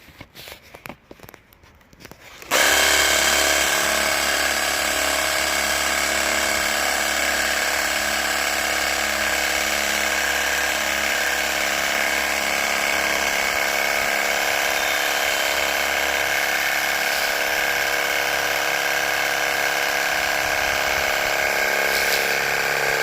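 Small electric motor switched on about two and a half seconds in, then running at a constant speed with a steady high whine made of several fixed tones over a low hum.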